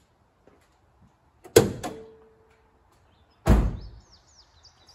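Two knocks about two seconds apart. The first is a sharp clack with a brief ringing tone after it; the second, the loudest, is a heavy low thud as the driver's door of a 2010 Ford Ranger pickup is slammed shut.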